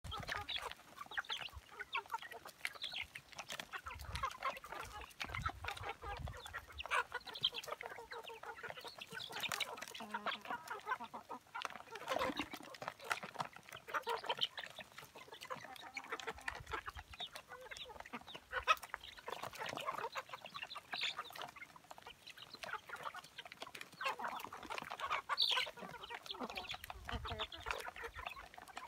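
A flock of young chickens clucking and calling continuously as they crowd together pecking at feed.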